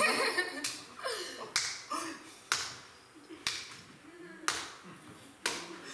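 A steady beat of sharp, clap-like strokes, about one a second.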